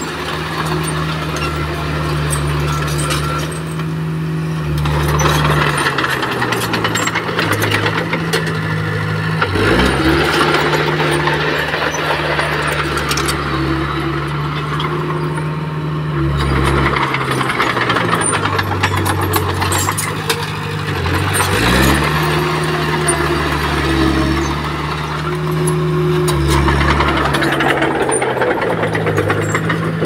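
Komatsu D20P bulldozer's diesel engine working in repeated cycles: it revs up sharply three times, about ten seconds apart, holds under load, then drops back. A steady clatter runs over the engine sound.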